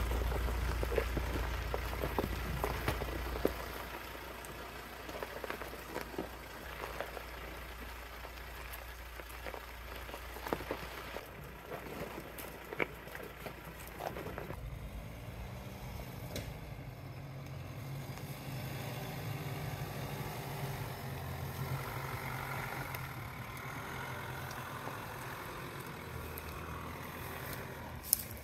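Four-wheel-drive vehicle driving along a dirt track: steady low engine and tyre rumble with scattered knocks and rattles. About halfway through the sound changes abruptly to a steadier engine drone.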